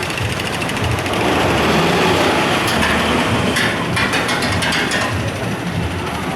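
Wild Cat roller coaster train running on its steel track: a steady loud rumble, with a run of rattling clatters in the middle.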